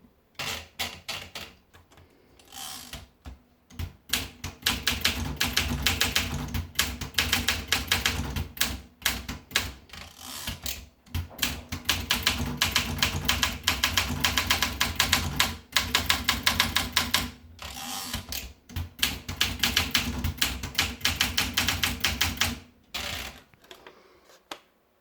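Olympia SM9 manual portable typewriter being typed on: rapid runs of key strikes in bursts, broken by several short pauses.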